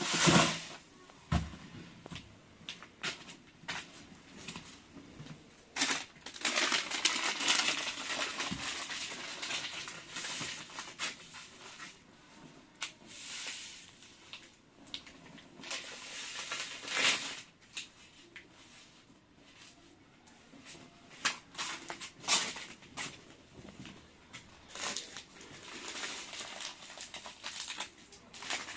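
Hands handling things: a thump at the start, then scattered clicks and taps and stretches of rustling and crinkling as a small plastic packet is handled and opened.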